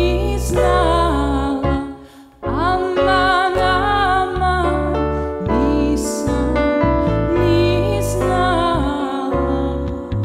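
A woman singing a slow folk song in long, wavering held notes, accompanied by piano and plucked double bass. The music drops away briefly about two seconds in.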